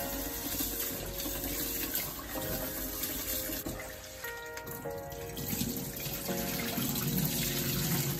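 Kitchen tap running into a metal pot as rice is rinsed by hand in a steel sink.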